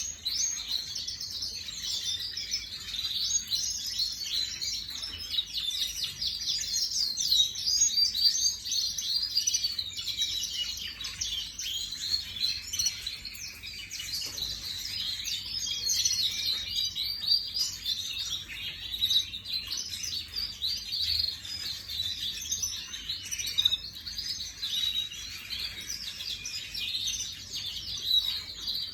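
Domestic canary singing continuously: a long, fast warbling song of rapid trills and rolls.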